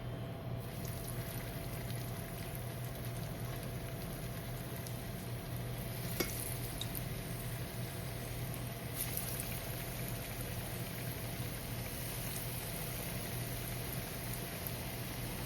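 Breaded snakehead nuggets deep-frying in hot oil, a steady sizzle with one small click about six seconds in. The sizzle gets brighter about nine seconds in.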